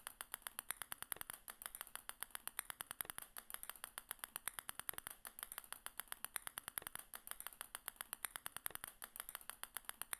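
Sound effect of small balls dropping and landing one after another: a rapid, even run of light clicks, several a second.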